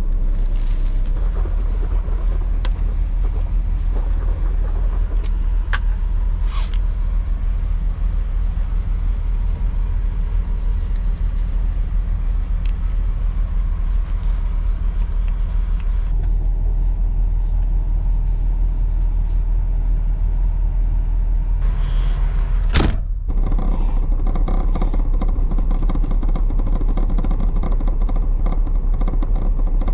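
Semi-truck diesel engine idling, a steady low rumble heard inside the cab, with scattered small clicks and knocks of things being handled in the first half and one sharp knock about three-quarters of the way through.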